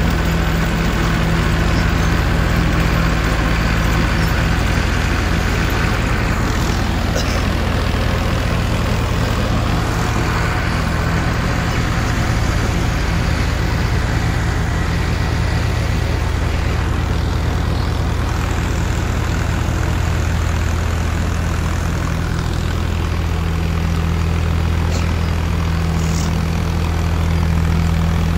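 Automatic clay brick making machine at work: its engine running with a steady, heavy low hum that holds an even pitch.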